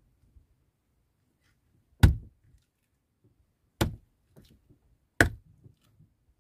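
Three sharp knocks, each brief and loud, spaced about one and a half to two seconds apart.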